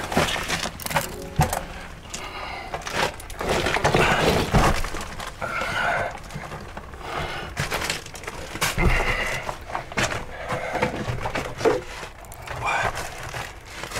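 Footsteps crunching and clinking over broken glass, bottles and rubbish on a tunnel floor, with irregular knocks and cracks throughout.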